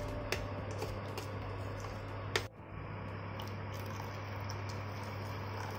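Steel spoon stirring thick spinach puree in a stainless steel pan, clicking and scraping against the pan several times, with one sharper knock about two and a half seconds in. After that the stirring stops and water is poured into the puree. A steady low hum runs underneath.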